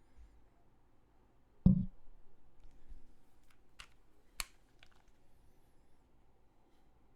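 A few isolated strokes on a custom mechanical keyboard with lubed linear Cherry MX Black switches on an aluminium plate. There is one heavy, low thud under two seconds in, then a few sharper key clacks about two to three seconds later.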